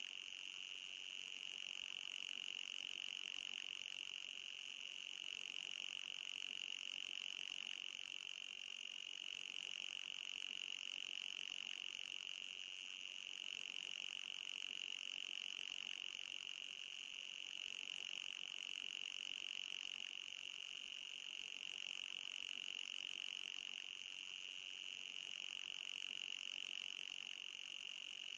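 Synthetic anti-mosquito repellent tone: a steady, high-pitched electronic whine with a fainter, higher tone above it, unchanging throughout.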